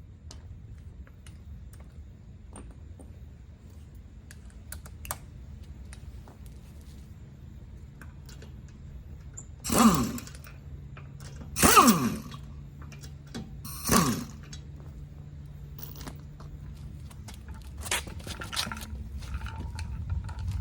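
Power impact wrench working on the lug nuts of a car wheel: three short bursts about two seconds apart, each falling in pitch as the motor spins down after the trigger is let go, then a weaker fourth burst near the end. Small clicks and scrapes of the tool and nuts between bursts, over a faint steady hum.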